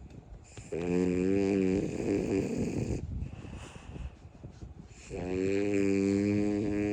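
French bulldog snoring in its sleep: two long snores, the first about half a second in and the second about five seconds in, each with a droning pitch, with quieter breathing between.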